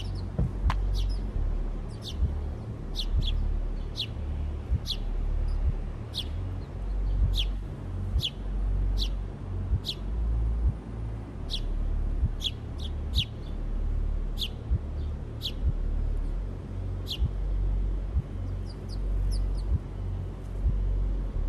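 House sparrows chirping: short, sharp cheeps, one or two a second, with a quick cluster near the end, over a low fluctuating rumble.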